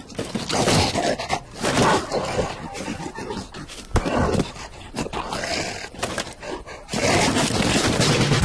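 Cartoon animal vocal effects: irregular grunts and roar-like growls.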